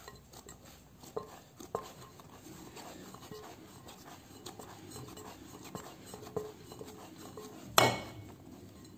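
Hands rolling and tucking a soft ball of bread dough in a glass mixing bowl: soft rubbing and squishing with small clicks against the glass. Near the end comes one loud, sharp knock with a brief ring as the glass bowl is handled.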